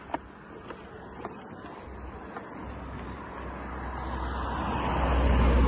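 A car approaching from behind and passing close by, its engine and tyre noise growing steadily louder to a peak near the end.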